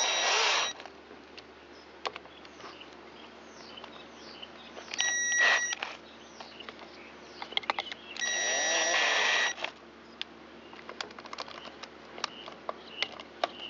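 Power driver spinning mounting nuts down in three short runs, each a high motor whine about a second long, near the start, about five seconds in, and about eight seconds in. Small clicks and knocks of handling in between.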